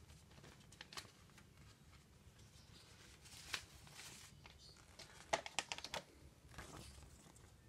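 Plastic Blu-ray case being handled and opened: scattered clicks and rustling, with a quick run of plastic clicks about five seconds in as the case swings open.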